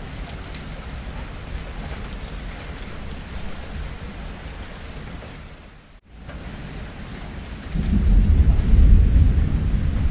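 Steady rainfall, then thunder: about eight seconds in, a deep rumble comes in and grows loud over the rain. About six seconds in, the sound drops out almost to silence for an instant.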